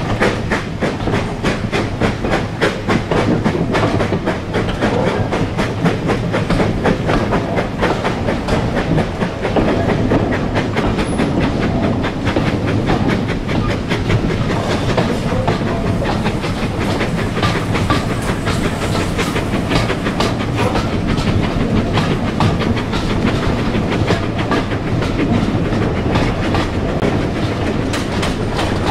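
Passenger coaches of a steam-hauled train rolling along the track: a steady rumble with a fast clatter of wheels over the rails, heard from an open carriage window.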